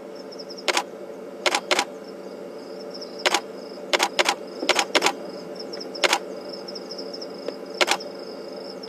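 Camera shutter clicking about ten times at uneven intervals, some single and some in quick pairs.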